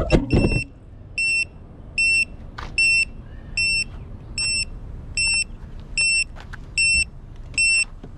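FPV drone touching down with a few knocks as its motors whine to a stop, then the drone's onboard buzzer beeping steadily, one short high beep about every 0.8 seconds, the beacon of a landed, disarmed quad.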